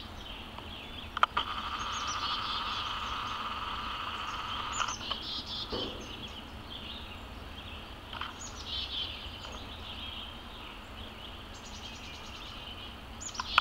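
Woodland birds chirping in short bursts every few seconds over a steady high-pitched background drone, with two sharp clicks about a second in.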